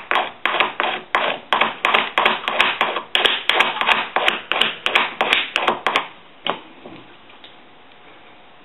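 Soldering gun tip being cleaned: a quick run of sharp taps, about four a second, that stops about six seconds in.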